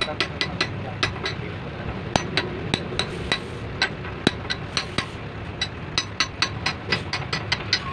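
Repeated sharp metallic taps of a steel rod on the rim of a 24-volt starter solenoid's steel housing, about three to four a second with a couple of short pauses, as the casing rim is knocked down over the terminal cap. A steady low engine hum runs underneath.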